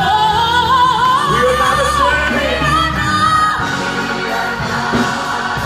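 Live gospel music: a solo voice sings long, wavering notes that climb over the first couple of seconds, over steady sustained instrumental accompaniment.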